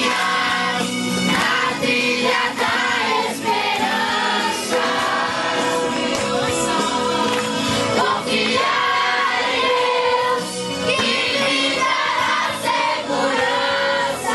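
Music: a song sung by a group of voices together, in the style of Christian gospel music.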